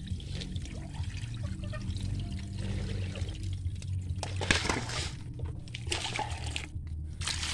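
Water sloshing and trickling in a stainless steel basin full of freshwater mussels as the shellfish are rinsed clean. The splashing swells about halfway through and again near the end.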